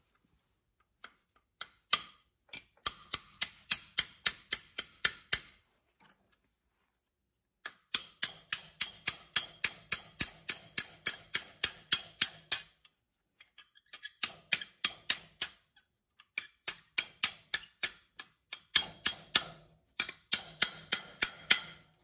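Small hammer striking a pin punch to drive out the brake pad retaining pins of a Toyota Tacoma front brake caliper. The ringing metal-on-metal taps come about five a second, in five runs with short pauses between them.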